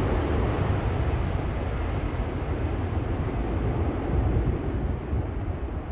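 Airbus A380's four jet engines at takeoff thrust as the airliner climbs away, a steady deep rumble; the hiss on top slowly fades as it recedes.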